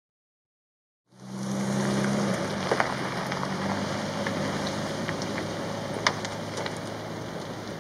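Steady rush of river water, fading in after about a second of silence, with a low hum underneath that is stronger at first.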